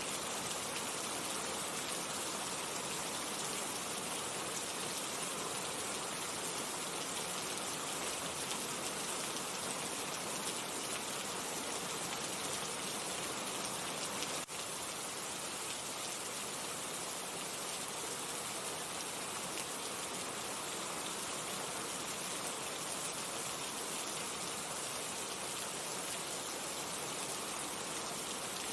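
Steady rainfall, an even, unbroken patter of rain, with a momentary break about halfway through.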